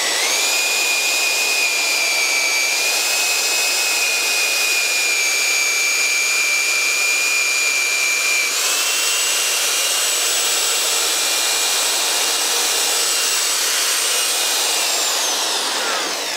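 Cordless drill boring a long auger bit through a thick wooden beam, its motor whining steadily. The pitch steps up about halfway through and winds down as the drill stops near the end.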